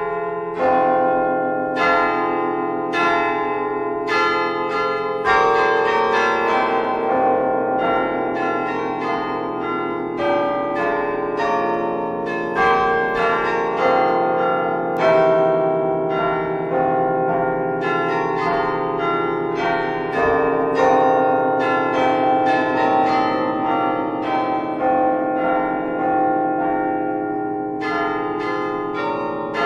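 Church bells pealing: a dense run of struck bells with many overlapping strikes ringing on.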